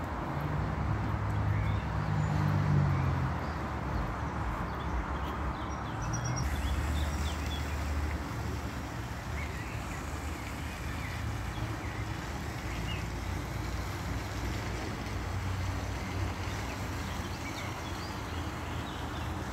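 Wind buffeting the microphone in uneven low rumbles over a steady rushing hiss.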